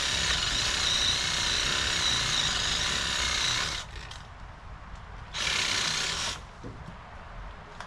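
A saw cutting through an apple tree branch: one long cut of about four seconds that stops, then a second short cut of about a second.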